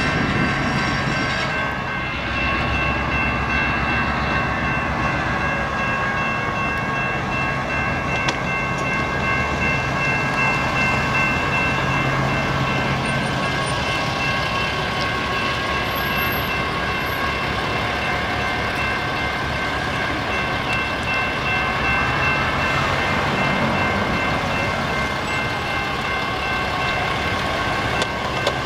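EMD GP9 diesel-electric locomotive's two-stroke V16 engine running as it slowly moves a loaded flatcar. Its wheels roll on the rails, and a steady high whine lasts throughout.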